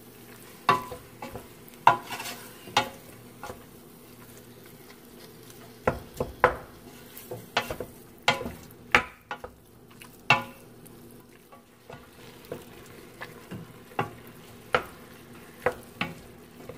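A wooden spoon stirring cubed pork browning in a stainless steel pot: irregular knocks and scrapes of the spoon against the pot, over a faint sizzle of the frying meat.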